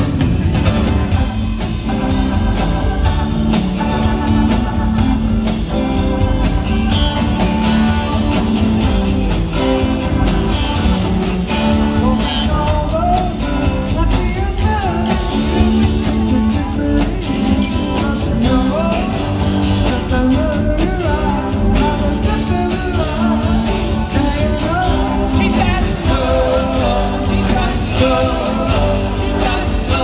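Live rock band playing: electric guitars, bass and drum kit, with sung vocals, heard from the audience in a large hall.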